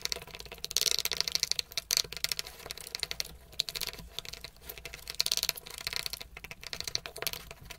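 Wooden spatula stirring a thick vaseline-based hair mask in a glass bowl: quick runs of clicking and scraping of wood against glass, with short breaks between runs.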